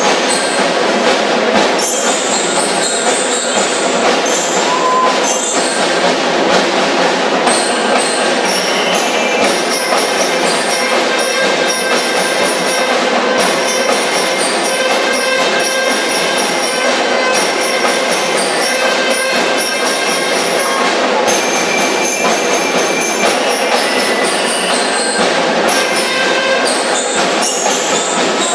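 High-school marching drum corps playing a continuous snare-drum cadence, with ringing bell-like tones over the drums.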